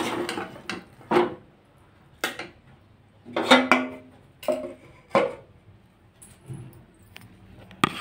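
Metal spatula clanking and scraping against a steel kadhai of cooked vegetables. The strikes come about a second apart, each with a short metallic ring, and bunch together about three and a half seconds in.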